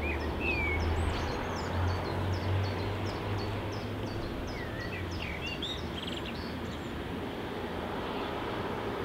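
Outdoor ambience: a steady low rumble with a noisy hiss over it. A small bird chirps a quick series of high notes with a few whistled calls through the first two-thirds.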